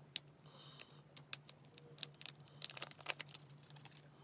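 Hands handling an Apple Pencil and its packaging: a run of small clicks and taps, with a brief rustle about half a second in, over a faint steady low hum.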